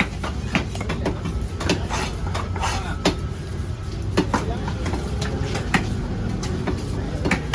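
Knife chopping fish into small pieces on a cutting block: irregular sharp knocks, roughly two a second, over a steady low rumble.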